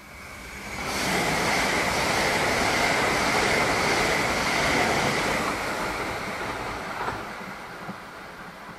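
E6 series Akita Shinkansen Komachi train passing at speed below and running away up the line. A rush of wheels and air swells about a second in, carries a steady high whine, and fades after about five seconds as the train recedes.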